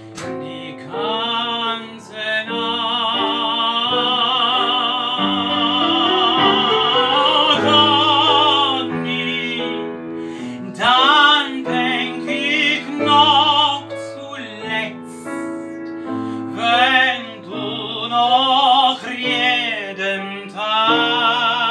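A singer performing a song in a full, opera-like style with wide vibrato, holding long notes, over piano accompaniment.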